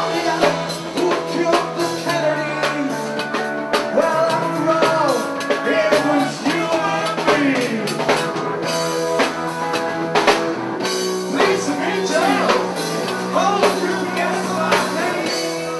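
Rock music: a band with singing, drums and electric guitar.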